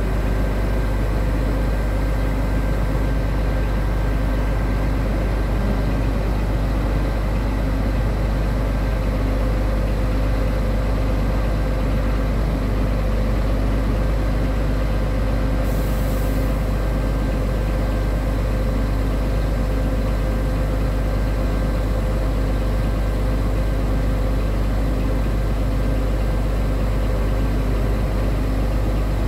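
Scania R truck's diesel engine running steadily, driving the loader crane's hydraulics as the boom unfolds, with a short hiss about halfway through.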